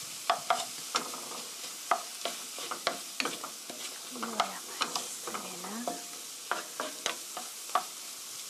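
Wooden spatula stirring chopped tomatoes and onion in a frying pan, knocking and scraping against the pan two or three times a second, over the steady sizzle of the vegetables frying.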